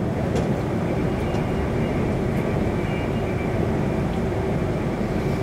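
Steady running noise of a Class 350 Siemens Desiro electric multiple unit in motion, heard from inside the passenger saloon: the even din of wheels on rails and running gear.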